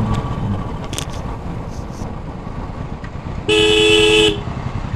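A vehicle horn sounds once for just under a second, about three and a half seconds in, with two pitches at once. Underneath, the low steady running of a Royal Enfield Bullet's single-cylinder engine rolls slowly in traffic.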